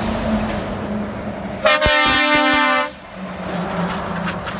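Heavy trucks passing with their engines running; about two seconds in, a truck's air horns give one loud blast a little over a second long, several tones sounding together.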